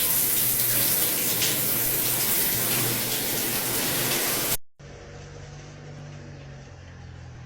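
Running water, like a tap or shower, as a loud steady rush for about four and a half seconds. It cuts off suddenly to a much quieter steady low hum.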